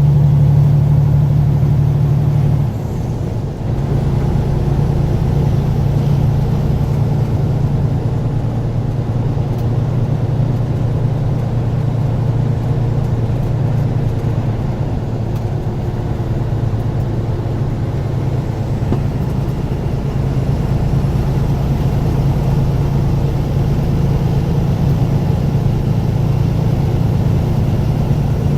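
Truck engine running steadily while driving, a continuous low drone with road rumble. About three seconds in the engine note briefly drops, and it grows stronger again about two-thirds of the way through.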